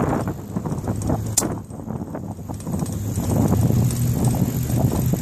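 Wind buffeting the microphone of a phone held out on a selfie stick while riding a bicycle, with irregular knocks and rattles and one sharp click about a second and a half in. A low steady hum builds in the second half.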